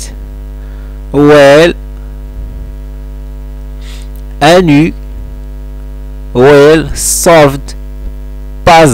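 Steady electrical mains hum with a row of constant tones running underneath. A man's voice speaks a few short words over it, about a second in, at four and a half seconds, and several times near the end.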